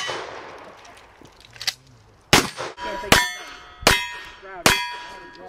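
A string of handgun shots about three-quarters of a second apart: a fainter crack, then four loud ones. Each loud shot is followed by the ring of a struck steel target plate.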